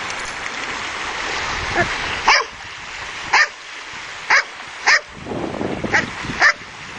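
A dog barking in six short, sharp barks spaced about a second apart, over steady surf and wind noise.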